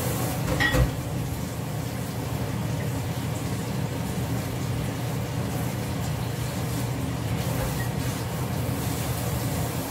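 Kitchen tap running into a stainless steel sink while dishes are washed under it, a steady rush of water over a low steady hum. A sharp metallic clink rings out about a second in.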